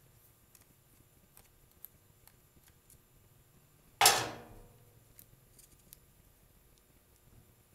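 A single sharp clank about four seconds in, fading out over about half a second: a screwdriver being put down on the work surface. Faint small clicks of hand-tool work on the carburetor come before and after it.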